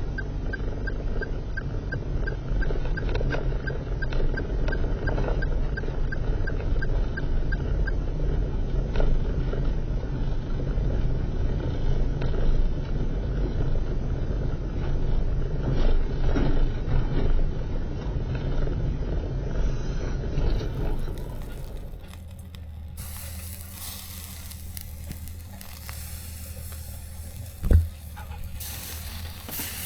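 A steady low rumbling noise, then, after a cut, the hiss of food frying in a pan with a single sharp knock near the end.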